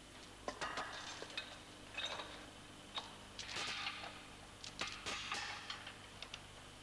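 Steel anchor chains clinking and rattling as they are hooked onto the pulley of a frame-straightening tower: a series of irregular sharp metallic clicks and short rattles, over a faint steady hum.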